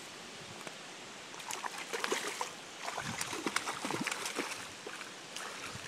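Water splashing and sloshing in a run of short, irregular splashes that start about a second and a half in and die away near the end.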